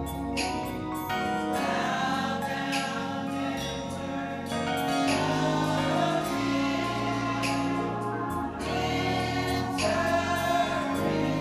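Gospel choir singing a worship song, backed by instruments holding sustained low notes that change every second or two.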